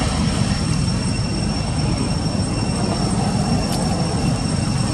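Steady low rumbling background noise with thin, constant high-pitched tones above it.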